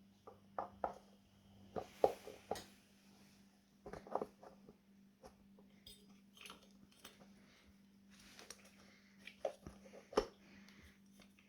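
Irregular clicks and knocks of scooter wheel parts and tools being handled: small pieces taken out, moved and set down by hand, with the loudest knocks about 2, 4 and 10 seconds in. A faint steady hum runs underneath.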